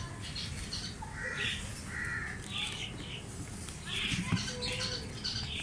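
Cockatiels giving a string of short, harsh, raspy calls, about a dozen over the few seconds.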